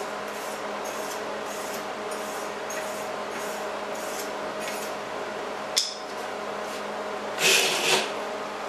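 Hand wire brush scrubbing a fresh MIG fillet weld on steel plate, descaling the joint in quick repeated strokes over a steady hum. A sharp click comes about six seconds in, and a louder scrape near the end.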